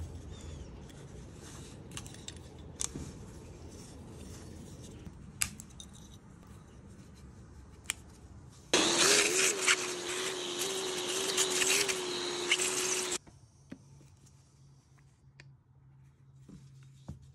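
Light clicks and taps as the metal parts of a pocketknife are handled. About nine seconds in, a small high-speed electric motor starts, runs with a steady whine for about four seconds, and cuts off suddenly. It is the loudest sound.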